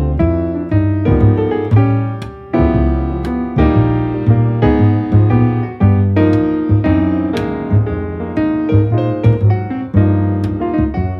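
Background music: a piano-led instrumental with a steady bass line and a regular beat.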